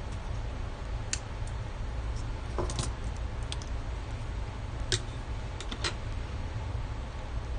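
Scattered light clicks and taps of small tools or parts handled on a workbench, over a steady low hum.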